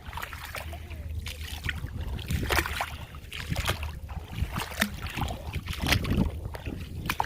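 Wind rumbling on the microphone, with scattered small clicks and knocks.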